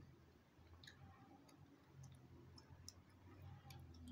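Near silence: faint room tone with a low hum and a few small, scattered clicks.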